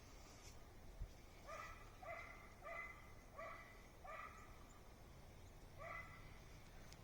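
Faint dog barking: a quick run of about six barks, then one more a couple of seconds later.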